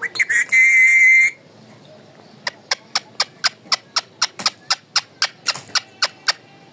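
An Alexandrine parakeet gives a loud, shrill whistle-like call lasting about a second. After a pause comes a run of about fifteen short, sharp clicks, roughly four a second.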